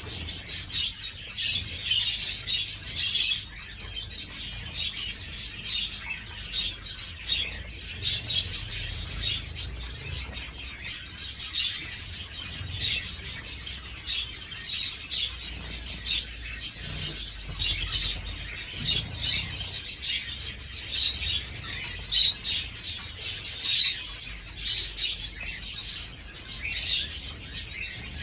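Zebra finches chirping constantly in many short, overlapping calls, with wing flutters from birds bathing in a shallow tray of water.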